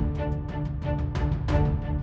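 Background music laid over news footage: a steady, regular beat with held notes.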